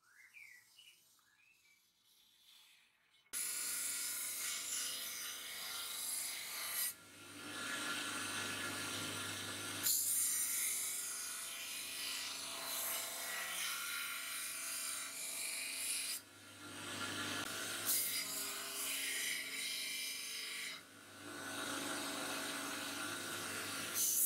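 Faint squeaks of a marker on a steel blade, then about three seconds in a belt grinder comes in loud, its motor humming under the rasp of a steel knife blade held against the running belt. The blade is ground in several passes, the grinding dipping briefly between them.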